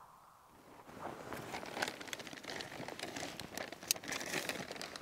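Plastic bag of kindling wood crinkling and rustling as a hand rummages in it, starting about a second in, with many sharp crinkles and clicks.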